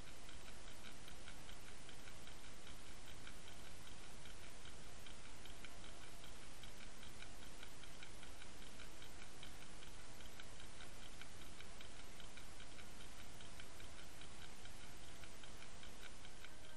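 Steady underwater noise picked up by a camera towed behind a trolling boat, with a fast, even ticking throughout.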